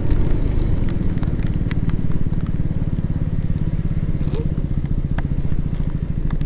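KTM Duke 200's single-cylinder engine running steadily at low revs as the motorcycle creeps forward in stopped traffic, with a few faint clicks.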